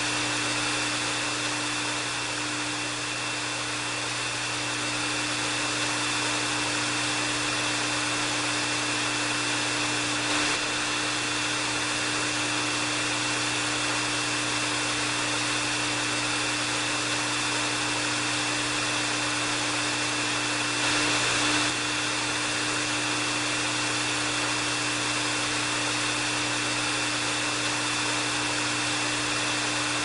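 Hair dryer running continuously: a steady rush of blown air with a constant motor hum and a thin high whine.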